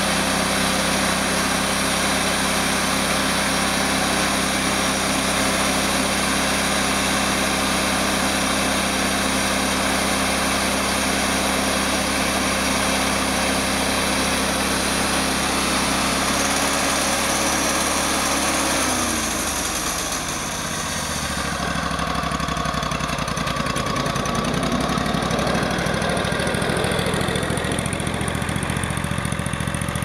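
Wood-Mizer portable sawmill's gas engine running steadily at working speed with the band blade turning. About two-thirds of the way through, the engine is throttled back and its pitch falls to a lower idle.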